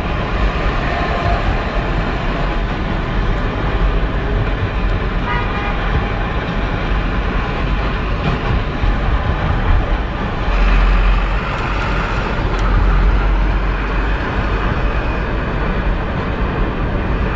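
Steady engine and road noise of a car driving at speed, heard from inside the cabin, with short car-horn toots about five seconds in and again near eleven seconds.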